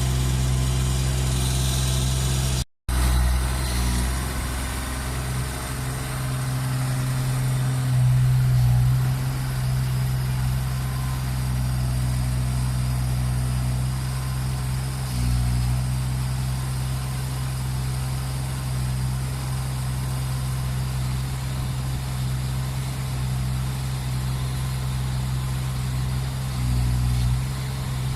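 Backhoe's diesel engine running with a steady low hum, swelling in loudness a few times as it works. All sound cuts out for a moment about three seconds in.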